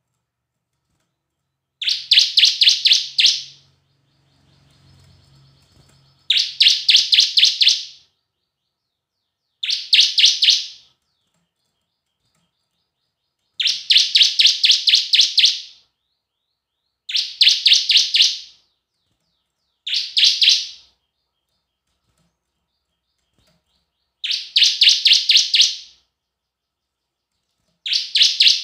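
Bar-winged prinia (ciblek) singing: about eight bursts of rapid, sharp, high-pitched repeated notes, each lasting one to two seconds, separated by silent pauses of a second or more.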